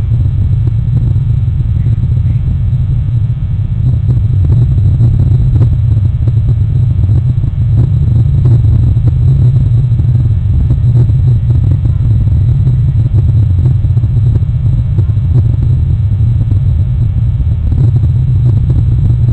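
Loud, steady low rumble with no distinct events, holding unchanged throughout.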